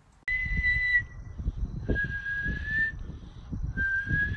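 A person whistling three long, steady notes, the first a little higher, the last rising slightly and running on. Low rumbling sounds underneath.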